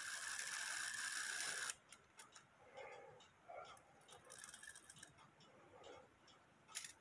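Antique cuckoo clock movement held in the hand: its gear train whirs steadily, then stops abruptly a little under two seconds in. Light clicks of levers and handling follow.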